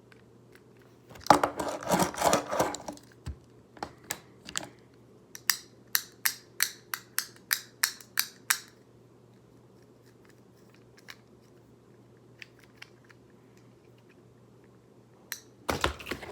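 Small plastic fidget cube being worked by hand: a quick clattering rattle, then a run of about ten sharp clicks at roughly three a second. Another short clatter comes near the end.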